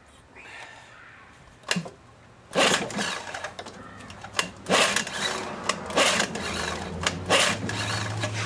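Recoil starter of an old Evinrude 6 hp two-stroke outboard being pulled repeatedly, a series of short, irregular rasping whirrs starting about two and a half seconds in, after a single click.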